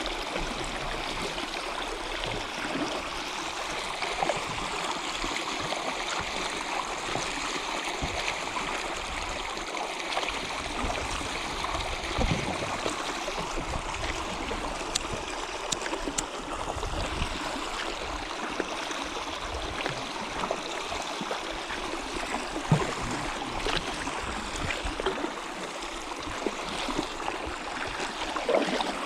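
Stream of water running steadily over rocks with a constant rushing, gurgling flow.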